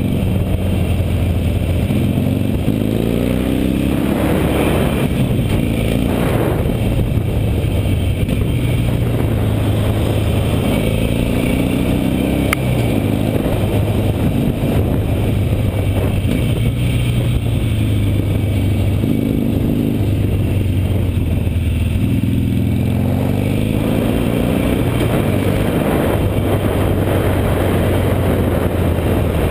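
Harley-Davidson Nightster's V-twin engine running while the bike is ridden, heard close up from the bike. Its pitch rises in several sweeps as the rider accelerates and drops back as the rider eases off between them.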